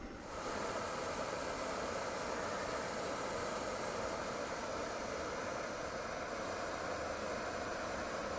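Jetboil gas canister stove burning, a steady rushing noise from the burner as it heats water in its cup toward the boil; it cuts in sharply just after the start.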